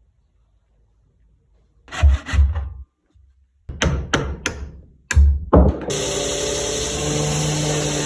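Workshop tool sounds: a few sharp knocks about two seconds in and another run of knocks between four and six seconds, then a steady whir of a running motor-driven tool from about six seconds in.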